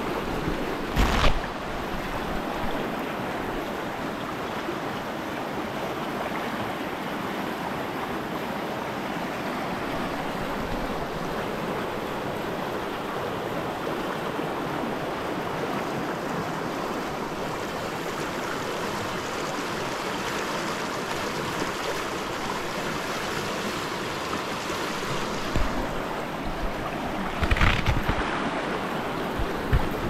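Fast glacial meltwater river from Exit Glacier rushing over stones, a steady unbroken rush of water. Short buffets of wind on the microphone come about a second in and again a couple of seconds before the end.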